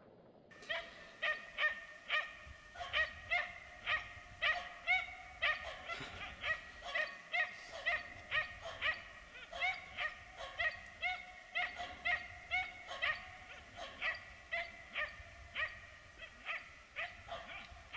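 Finnish spitz barking steadily in a fast run of sharp, high barks, about two a second, starting about half a second in. It is barking at a downed game bird lying on the snow.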